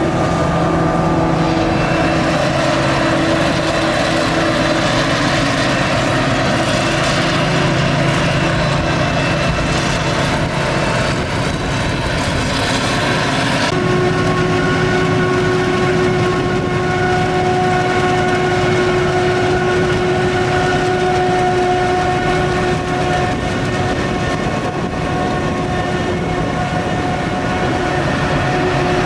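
Claas Jaguar 950 forage harvester chopping maize: its engine and chopping gear run steadily under full load, with several held whining tones over a heavy rumble. The sound shifts abruptly about halfway through.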